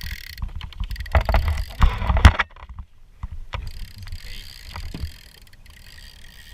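Conventional fishing reel's clicker ratcheting steadily as a small cobia pulls line off with the bait, stopping for a few seconds while knocks and thumps of handled gear on the kayak take over, the loudest about two seconds in, then starting again.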